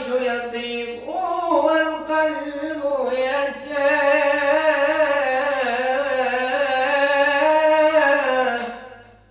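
A man's voice singing an unaccompanied Islamic devotional chant (tawshih), drawing out a long melismatic line with ornamented turns, then holding one long note that fades out near the end.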